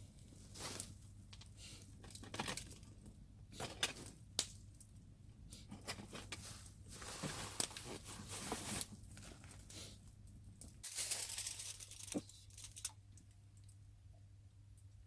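Packaging being crinkled and torn open, in irregular rustling bursts with the loudest stretches past the middle, over a steady low hum.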